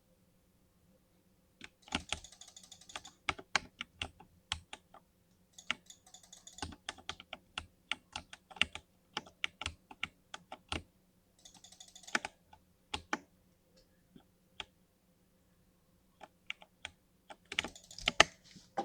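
Linear-switch gaming keyboard being typed on: bursts of rapid keystrokes alternating with single key presses. It starts about a second and a half in and pauses for a few seconds after the middle before typing resumes.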